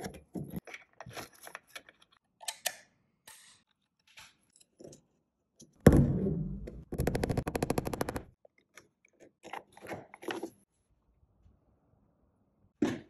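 Light clicks and taps of hand tools on timber. About six seconds in comes one loud hammer blow on a small pin, then a fast, even rattle lasting about a second and a half.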